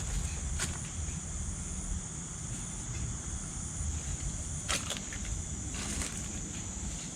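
Insects keeping up a steady high-pitched chorus, over a low rumble with a few short clicks.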